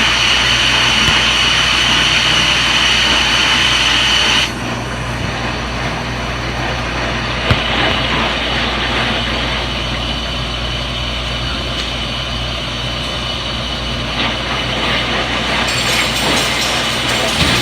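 Front-loading washing machine running in its spin cycle: a steady motor hum with a high whine. The whine cuts off sharply about four seconds in, and the machine runs on a little quieter, with a single click in the middle.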